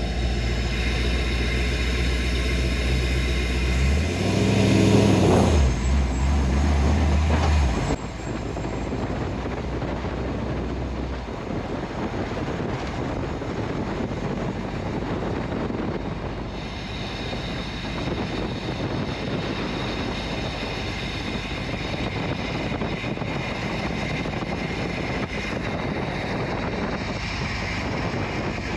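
The 6.0-litre L96 LS V8 of an LS-swapped 1964 Ford F100 running as the truck drives. Its note rises about four seconds in and drops back a moment later. About eight seconds in, the sound changes abruptly to a steady rush of tyre and wind noise with the engine underneath.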